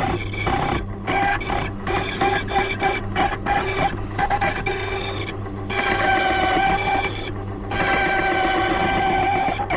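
Silca Lance key machine's cutter milling a large bitted key blank: a steady motor hum under a pitched cutting whine with many overtones. The whine breaks off in several short gaps as the key is worked along the cutter.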